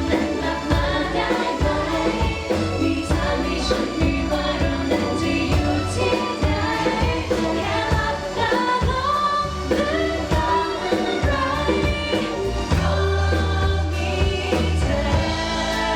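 Thai pop song performed live: singing over a backing track with a steady bass line and drums.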